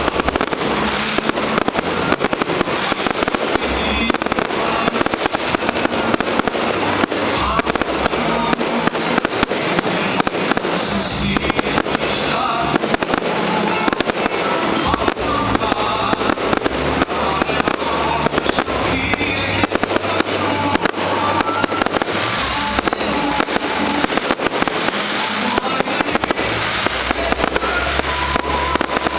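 Fireworks salute going off in a dense, continuous barrage of sharp bangs, with music playing underneath.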